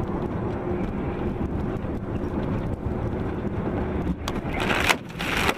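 Vehicle engine and road noise heard from inside the cab: a steady drone with a faint hum. Near the end come two or three sudden loud noisy bursts, as a vehicle close alongside throws up slush spray or strikes.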